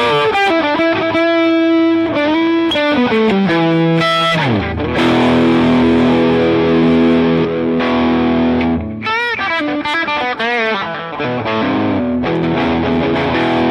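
Electric guitar played through a JOYO R21 overdrive pedal, sounding distorted: a lead line with bends and vibrato, a slide down about four seconds in into a long held chord, then more bent lead notes and another held chord near the end.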